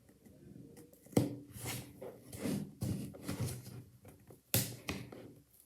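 A parcel's packaging being handled and picked at to open it: irregular rustling and scraping, with a sharp click about a second in and another past the middle.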